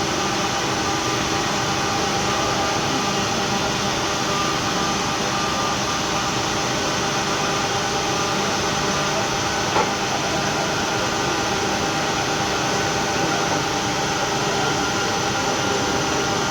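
Steady industrial drone of an induction furnace melting steel, a continuous noise with several faint steady hums running through it. A single short click about ten seconds in.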